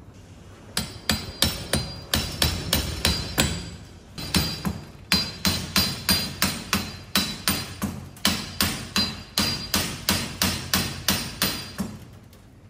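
Hammer tapping repeatedly on metal, about two to three sharp strikes a second with a short pause near the middle, each ringing briefly. It is the sound of knocking at a seized expansion valve coil on an air-conditioner unit to work it loose.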